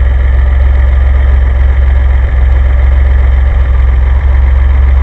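DeLorean DMC-12's PRV V6, converted to a single carburetor, idling steadily just after being started with a hand-filled carb. The low engine hum is loud and even, as heard from right in the engine bay.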